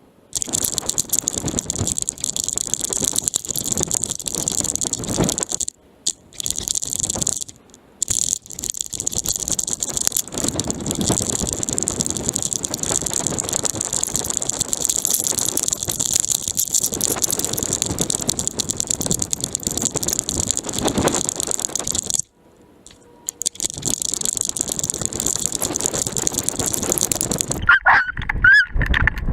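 A GoPro in a dog-harness mount rattling and knocking continuously as the dog moves, with a few short breaks where the noise stops. A few short squeaky chirps come near the end.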